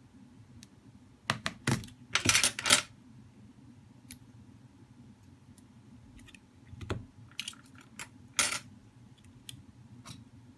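Clicks and clatter of plastic phone display frames and small parts being handled and set down on a silicone repair mat, in two bursts, the loudest about two seconds in and another about eight seconds in, over a steady low hum.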